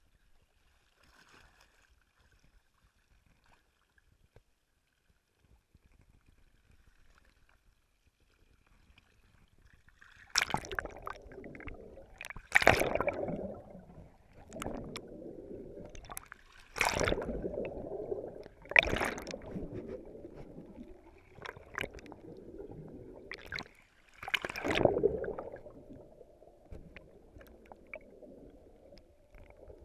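Faint at first. From about a third of the way in, water sloshes and gurgles around a camera held just under the sea surface, broken by about six sharp splashes and knocks.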